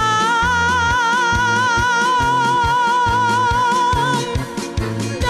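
A woman singing a sevdalinka holds one long, high note with vibrato, letting it go about four seconds in, over a live folk band of acoustic guitars, violin, keyboard and accordion keeping a steady bass rhythm.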